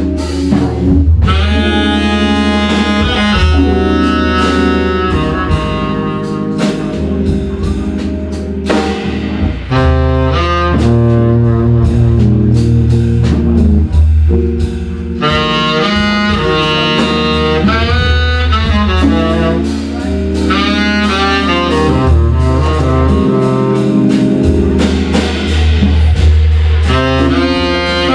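Live jazz trio playing a slow ballad: tenor saxophone melody in long held notes over organ chords and an organ bass line, with drums.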